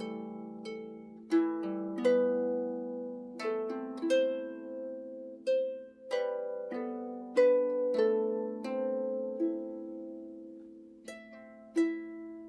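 Calm background music on a plucked string instrument in a harp-like style: slow chords and single notes, each struck sharply and left ringing as it fades, about one every second or so.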